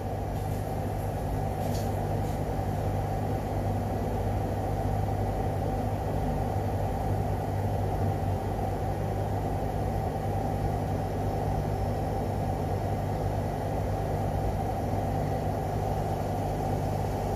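Steady low mechanical hum with no distinct events.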